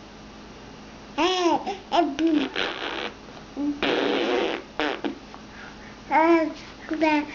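Baby babbling: short rising-and-falling squeals and coos, with a longer noisy, breathy burst about four seconds in.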